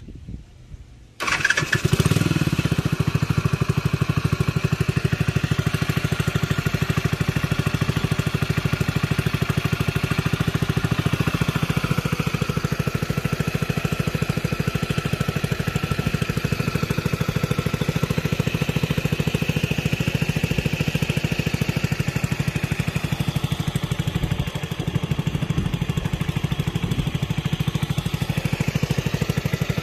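Honda motorcycle engine in a small homemade speed boat starts about a second in and then runs steadily, driving the boat across the water.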